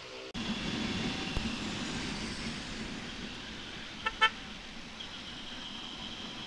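Honda TMX125 Alpha's single-cylinder four-stroke engine pulling away from a stoplight, its steady running mixed with wind and road noise. A vehicle horn gives two short beeps about four seconds in.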